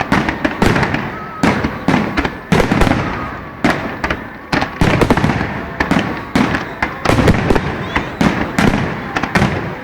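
Aerial fireworks shells bursting in quick succession: sharp, loud bangs, two or three a second, each followed by a fading echo.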